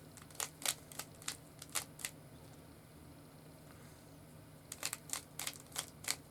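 A Rubik's Cube being turned by hand, its plastic layers clicking with each twist. There are several spaced clicks, then a pause of a couple of seconds, then a quicker flurry of twists near the end.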